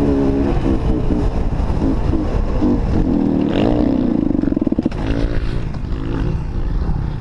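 Kawasaki KX250 dirt bike engine running under way, its pitch rising and falling as the throttle is worked, with a clear rev-up about halfway through.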